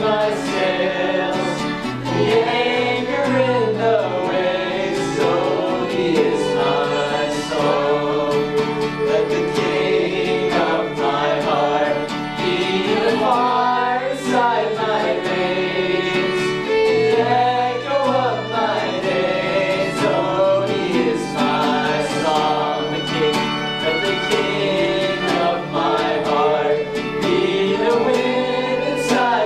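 Several voices singing a gospel song together, accompanied by guitar and other string instruments.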